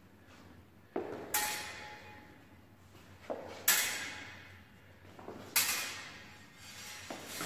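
Feet stamping on a wooden floor and thin practice sword blades clashing, echoing in a large hall. Three times a low thud is followed closely by a bright metallic crash that rings out, about two seconds apart, and another thud comes near the end.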